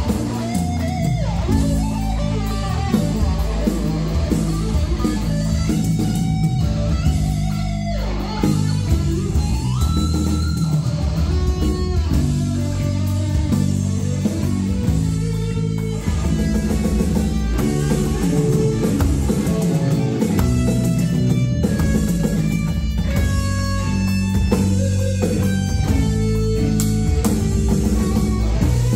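A rock band plays an instrumental passage: an electric guitar carries the melody with bent and sliding notes over bass guitar and drums.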